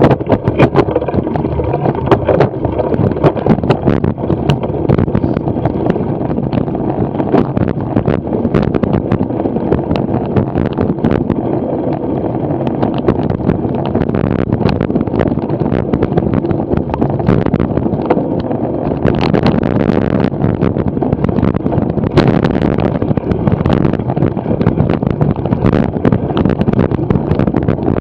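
A cyclo-cross bike ridden over sand, dirt and grass, heard from a camera mounted on it: steady wind buffeting the microphone and tyre rumble, with frequent knocks and rattles as the bike goes over bumps.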